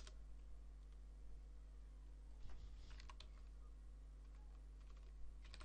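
Faint computer keyboard keystrokes, a few scattered clicks while numbers are typed into a field, over a steady low hum.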